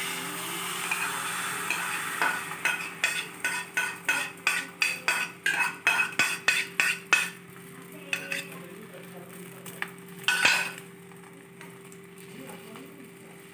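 Beaten egg hitting hot oil in a stainless steel frying pan and sizzling, then a fork tapping and scraping against the bowl about four times a second as the last of the egg is pushed out. Quieter frying follows, with one short louder clatter about ten seconds in.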